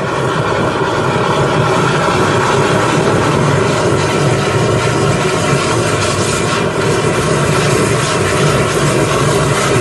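Drain jetter running steadily: its engine-driven high-pressure pump drones while water is forced through the hose to a 1/4-inch Tarantula jetting nozzle in the drain line, with a rushing hiss of spray. The level stays even throughout.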